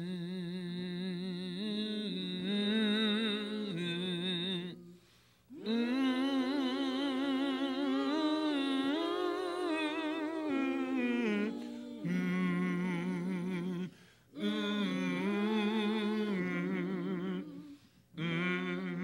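A voice humming a slow, wordless tune with vibrato, in several long phrases separated by short breaks for breath.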